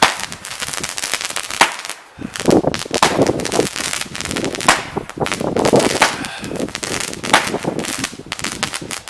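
Consumer fireworks going off in a rapid, irregular run of sharp bangs and crackles, with a short lull about two seconds in.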